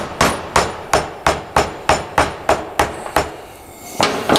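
Metal-on-metal hammering: the poll of a hatchet strikes a screwdriver driven into a block of beeswax to split off chunks. About three sharp blows a second for three seconds, a short pause, then one more blow near the end.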